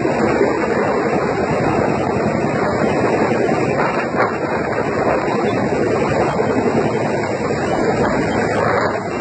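Helicopter running steadily, a loud dense noise with wind buffeting the microphone.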